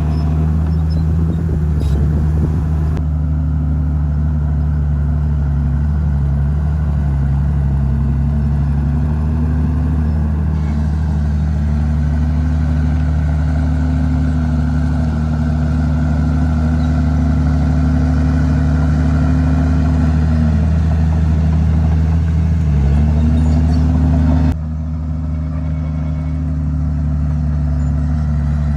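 Komatsu D51PX bulldozer's diesel engine working. Its note dips and recovers several times as the load comes on and off while pushing dirt. About 25 s in the sound drops abruptly to a slightly quieter steady run.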